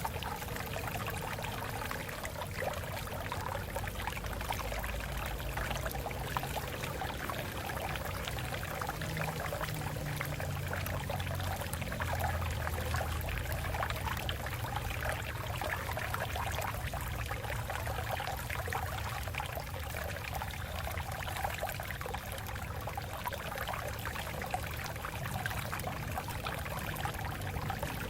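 Stream water flowing and splashing over rocks, a steady babble.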